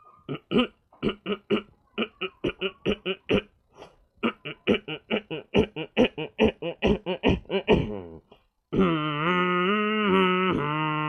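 A boy's voice making a vocal sound effect: a long run of short, laugh-like voiced syllables at about four a second, with a brief break partway through, then a single long held note near the end.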